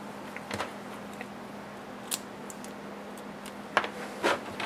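Scattered small clicks and taps of oscilloscope probes and clip-on test leads being handled and clipped onto wires, several sharper clicks near the end, over a steady low hum.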